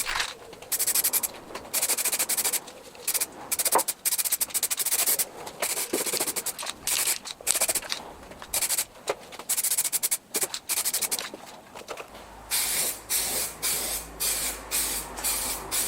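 Aerosol can of underbody sealant sprayed in many short hissing bursts, starting and stopping again and again.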